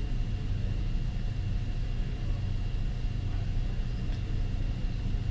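Steady low machine-shop hum with a faint, steady high whine above it, and a faint click about four seconds in. The lathe's spindle is not yet turning.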